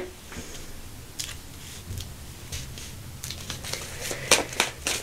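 Tarot cards handled and shuffled by hand: faint scattered clicks and rustles that come more often and louder in the second half.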